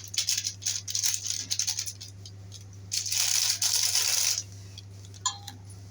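Chicken 65 masala powder being shaken out of its packet into a bowl: a quick run of rattling taps and crinkles, then a rustling swish about three seconds in that lasts over a second.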